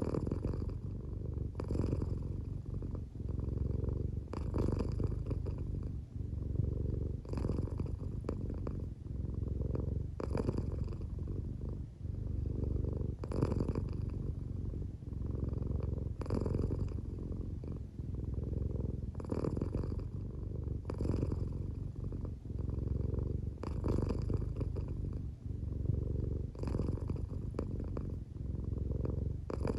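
An American Shorthair cat purring steadily, a low continuous rumble that swells with each breath about every three seconds. The cat is drowsy and half asleep, so the purr is close to a snore.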